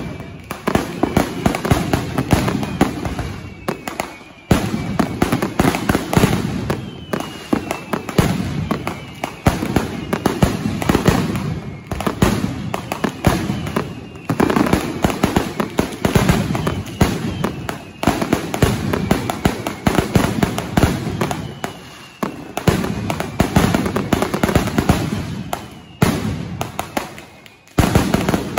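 Mascletà firecracker barrage: dense, rapid ground-level bangs running together in continuous volleys that swell and drop in waves every few seconds, with falling whistles sounding over them.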